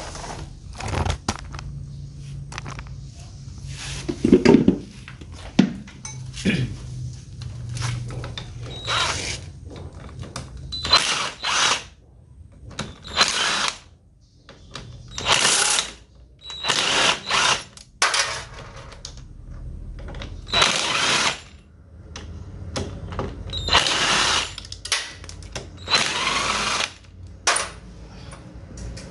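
Cordless power driver with a socket spinning out motorcycle clutch spring bolts, in about a dozen short whirring bursts of a second or so each.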